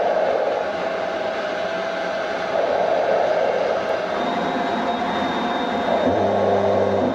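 Jet fighter in flight: a steady, loud roar of engine and air noise. A low steady hum joins in about six seconds in.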